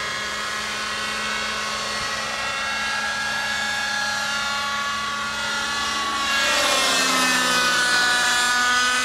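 Thunder Tiger Raptor 50 radio-controlled helicopter in flight, its nitro engine and rotors giving a steady whine. About six seconds in it grows louder and the pitch dips and then climbs again as it passes close overhead.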